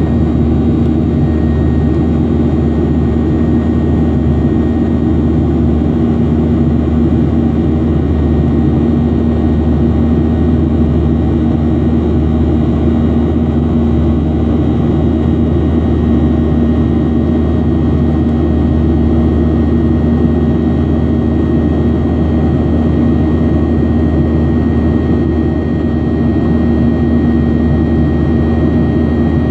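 Jet airliner cabin noise during the climb after takeoff: a steady roar of the engines and rushing air, with a steady low hum and a thin high whine running through it.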